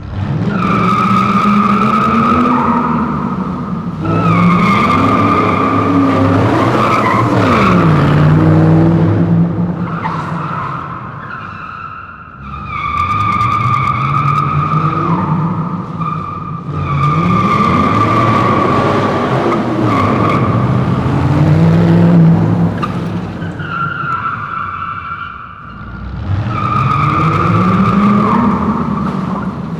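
Dodge Challenger's tyres squealing in long, steady screeches while its engine revs up and down beneath them. The squealing comes in three stretches, with two brief lulls between them.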